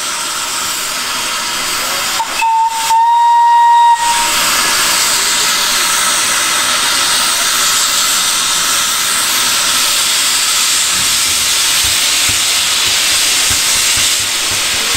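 Small saddle-tank steam locomotive, the ex-L&Y 'Pug' 0-4-0ST, gives one short whistle blast about two seconds in. Then comes a loud, steady hiss of steam from its open cylinder drain cocks as it starts away.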